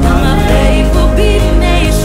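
Background music: a melody line over a steady low bass.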